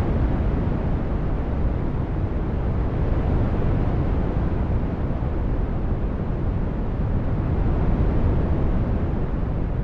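Synthesized brown noise: a steady, deep rushing hiss, heaviest in the bass, that swells and eases slightly over a few seconds.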